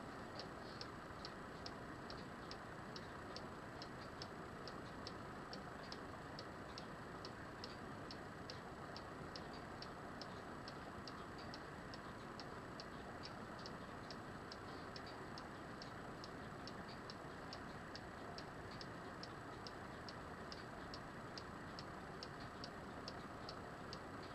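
Carved wooden cuckoo clock ticking steadily and faintly, about two even ticks a second, over a steady hiss.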